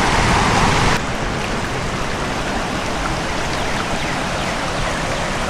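Steady rush of a flowing river, loud and even, cutting in about a second in after a brief lower rumbling noise.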